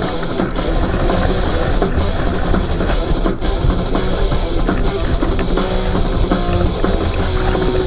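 Rock music with a steady drum-kit beat and guitar.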